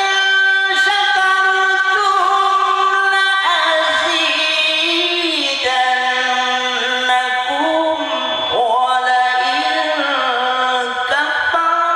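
A male qari's voice reciting the Quran in ornamented melodic style, singing one long unbroken phrase that holds notes and glides between them, with the pitch stepping down about four seconds in and rising again near the end.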